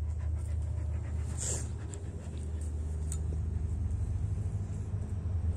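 A dog panting close by, over a steady low hum, with a few faint clicks and a short noisy breath about a second and a half in.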